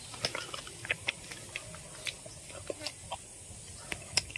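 Chewing a hard betel nut with chili: faint, irregular crunches and clicks, a few each second.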